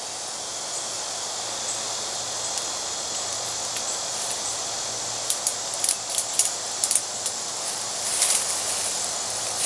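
Steady high hiss of outdoor ambience, with scattered light clicks and rustles, busiest from about halfway on and near the end, as a camouflage hammock's strap and fabric are handled and adjusted at the tree.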